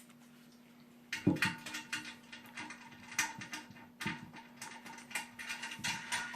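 Irregular metallic clicks and clinks of washers and nuts being handled and threaded onto the toilet tank's mounting bolts, starting about a second in.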